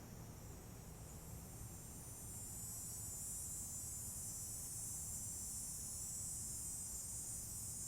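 Insects calling outdoors: a steady, high-pitched buzzing chorus that grows a little louder about two and a half seconds in, over a faint low rumble.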